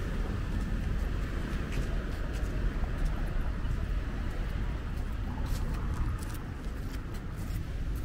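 Beachfront street ambience: a steady low rumble of road traffic going by, with no speech.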